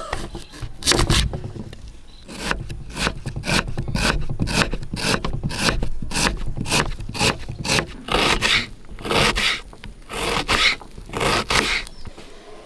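Kitchen knife slicing and chopping a red onion on a wooden board: a steady run of crisp cuts, about two to three a second.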